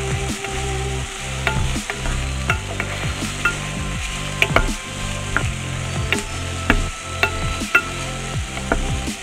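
Diced onion and garlic sizzling in hot oil in a pot while a wooden spoon stirs them, with many short knocks and scrapes of the spoon against the pot over a steady sizzle.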